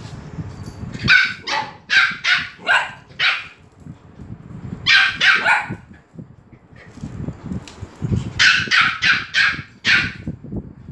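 Small dogs barking excitedly in three quick runs of sharp, high-pitched barks, with short pauses between.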